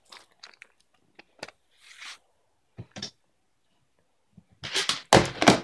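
Plastic toy dinosaur figures being handled and set down: scattered faint clicks and ticks, then a louder cluster of knocks about five seconds in.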